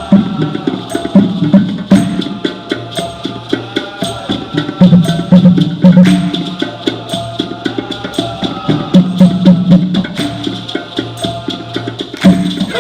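Dikir barat ensemble playing a percussion-led passage: hand drums hold a steady low beat under sharp, evenly spaced clicking strikes, with pitched lines above.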